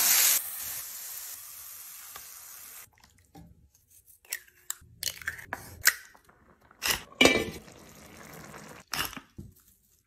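Diced onion and red pepper frying in a pan: a loud sizzle that drops within the first half-second and dies away over the next couple of seconds. Then a scatter of short cracks and taps, among them eggs being cracked by hand into tomato sauce in the pan.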